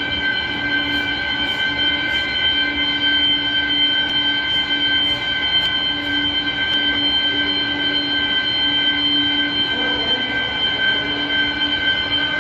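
Fire alarm sounders going off continuously during an alarm test. Several steady high-pitched tones sound together, with a lower tone that keeps cutting out and coming back.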